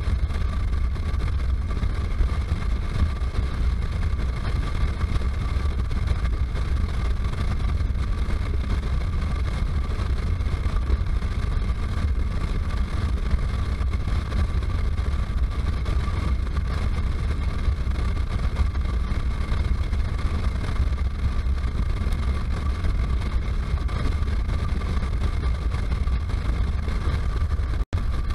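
Wind rumble on a helmet-mounted camera's microphone over the steady drone of a motorcycle cruising at highway speed. The sound cuts out for an instant near the end.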